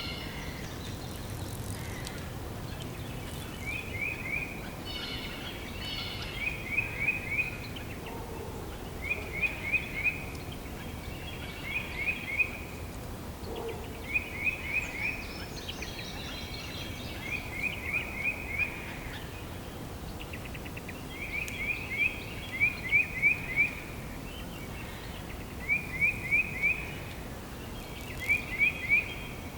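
Spring forest ambience with birds singing: one bird repeats a short phrase of three or four quick, falling notes every two or three seconds, while other birds chirp faintly over a steady low background rush.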